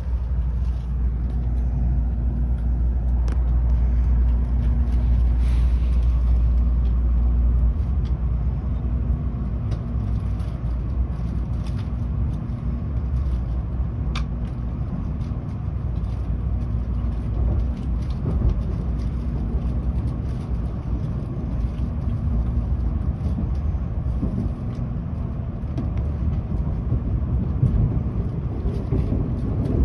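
Tokaido Shinkansen running noise heard inside the passenger car: a steady low rumble with a faint hum, easing slightly about eight seconds in, and a few light clicks.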